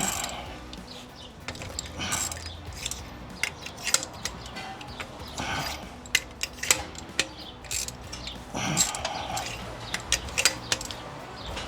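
Scattered metallic clicks, clinks and scrapes of hand tools and engine parts being handled during an engine teardown.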